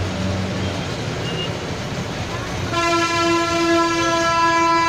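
Street traffic with an engine idling, then a vehicle horn starts about three seconds in and is held as one long steady blast.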